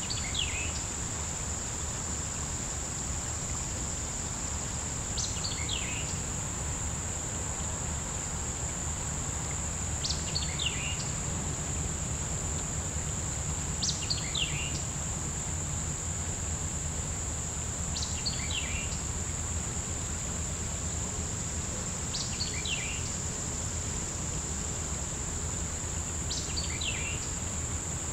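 A steady, high insect drone from a summer insect chorus, with a bird repeating the same short, falling song phrase about every four seconds. A low rumble runs underneath.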